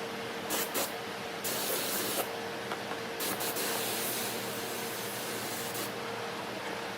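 Compressed-air spraying in several hissing bursts, the longest lasting a couple of seconds, over a faint steady hum.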